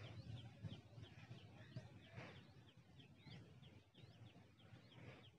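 Near silence with faint bird chirps, short high calls repeating about three times a second.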